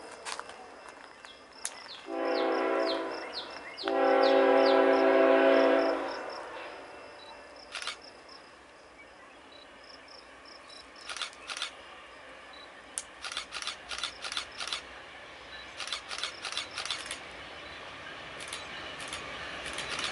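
Approaching BNSF freight locomotive sounding its multi-chime horn in two blasts, about two seconds in and again right after, the second longer and louder. After the horn the train's rumble grows steadily louder as it nears, with scattered sharp clicks.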